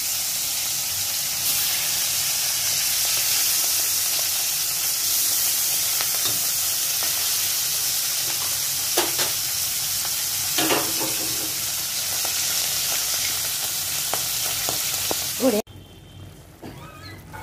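Turmeric-rubbed whole fish frying in hot oil in a kadai, a steady loud sizzle, with two brief knocks around the middle. The sizzle cuts off suddenly near the end.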